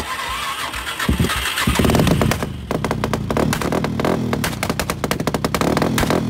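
Suzuki LTZ 400 quad's single-cylinder four-stroke engine starting up. A few heavy, uneven bursts come first, then it settles into rapid firing about two and a half seconds in, running with a wavering, uneven beat. The roughness is taken for an air-fuel mixture or carburetor problem.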